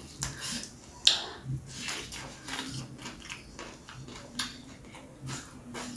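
Close-miked eating sounds: chewing with irregular small clicks and crunches, and one sharper click about a second in, as fingers pick rice and raw long beans from a stone mortar.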